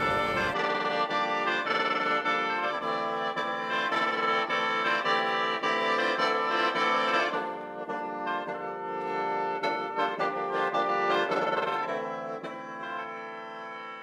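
Instrumental background music with sustained melodic notes over a steady beat, fading down near the end.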